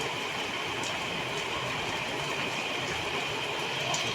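Steady rain falling: an even hiss with a few faint ticks.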